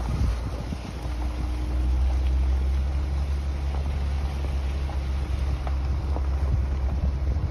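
Car driving slowly over a rutted dirt road: a steady low rumble of engine and tyres, with a few faint knocks from bumps and gravel.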